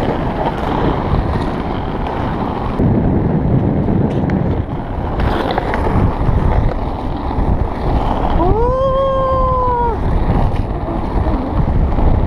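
Steady rolling rumble of inline skate wheels on asphalt, with wind buffeting the microphone. About eight and a half seconds in, a person lets out one drawn-out call that rises, holds for a second and a half, then falls away.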